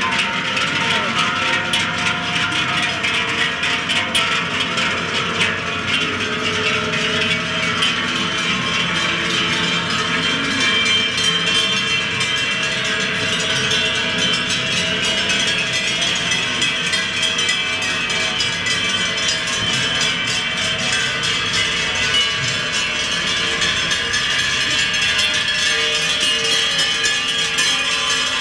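Many large cowbells (Treicheln) hung on a passing herd of cows, clanging together in a continuous, dense jangle of overlapping tones.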